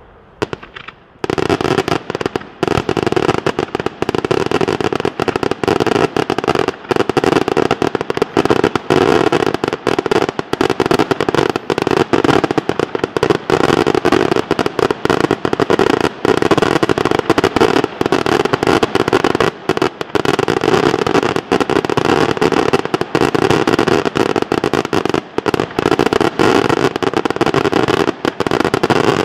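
Fireworks going off in a dense, unbroken rapid-fire barrage of cracks and bangs, starting abruptly about a second in.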